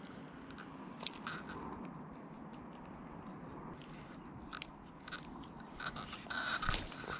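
Ultralight spinning reel being worked after a cast: a few sharp clicks, about a second in and again past the middle, then a spell of crunchy, crackling rustle near the end as the line is reeled in.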